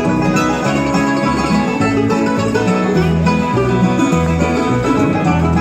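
Bluegrass band playing an instrumental break between verses, with banjo and guitar over a steady, stepping bass line.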